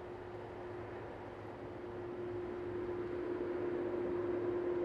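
Boeing 767-300ER's jet engines running at low power as the airliner taxis after landing: a steady whine over a broad rush of noise, growing louder as it approaches.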